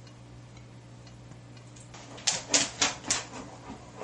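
A quick run of about five short, scratchy strokes, like crayon scrubbing on paper, over a steady low electrical hum.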